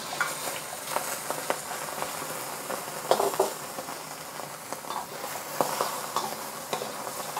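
Raw shrimp sizzling in hot oil in a wok, with a steady hiss. A metal wok spatula scrapes and knocks against the pan now and then as they are stir-fried.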